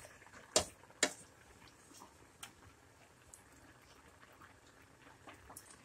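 Two sharp clicks about half a second apart near the start, then a few fainter scattered ticks over a quiet background.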